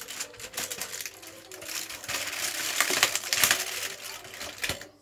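Small hard pieces clicking and rattling with crinkling of packaging, as toy parts and wrapping are handled.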